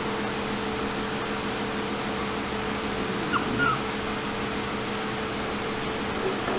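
Steady hum and hiss of background machinery, with two faint short squeaks a little past the middle.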